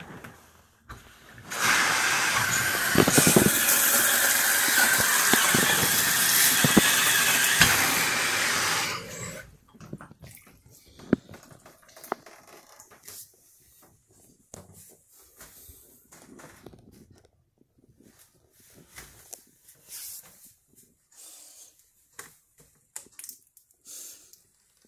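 Bathtub faucet turned on, water pouring hard from the spout into the tub for about seven seconds, then shut off. Afterwards there are only faint knocks and handling noises.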